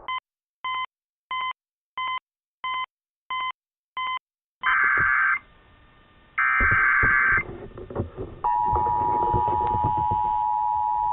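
Emergency Alert System test signal off a radio relay: seven short, evenly spaced beeps, then two bursts of SAME header data tones about a second long each, then the steady EAS two-tone attention signal starting near the end, with radio static crackling underneath.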